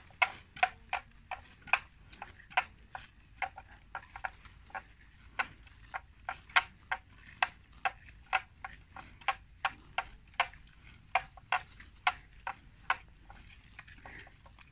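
Water buffalo grazing, tearing off mouthfuls of grass in a run of sharp snaps, about two or three a second, which stop near the end.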